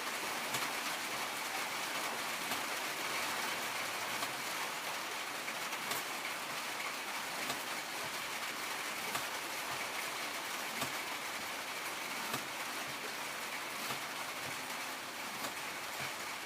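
Leatherman Wave blade being stroked along a leather belt strop, a small light tick every second or two over a steady hiss.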